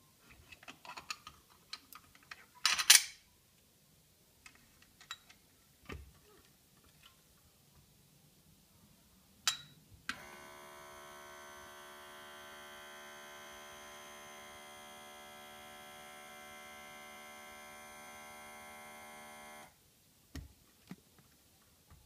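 La Pavoni lever espresso machine's portafilter being worked loose and set down on the metal drip tray: small clicks and knocks, then a sharp metallic clatter about three seconds in. About ten seconds in, after a click, a steady electric hum starts, lasts about ten seconds and cuts off suddenly.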